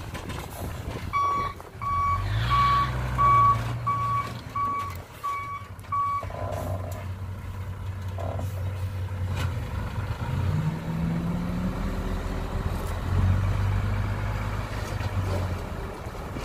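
Small dump truck reversing with its backup alarm beeping about eight times over its running diesel engine. The alarm stops about six seconds in. Later the engine speeds up as the tipper bed is raised to dump the soil.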